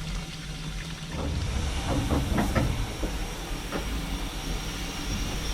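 Steam locomotive heard from the footplate: a steady hiss of steam over a low rumble, with a few metallic clanks about one to four seconds in.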